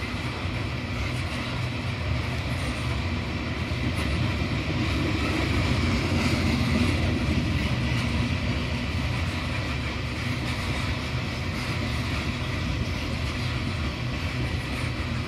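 Loaded limestone hopper cars of a BNSF freight train rolling past: a steady noise of steel wheels on rail, growing a little louder about halfway through.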